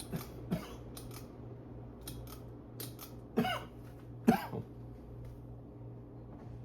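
A stack-motor ceiling fan's motor humming steadily while a series of sharp clicks and short metallic rattles sound, the loudest two about three and a half and four and a half seconds in. This is the fan being switched off to spin down.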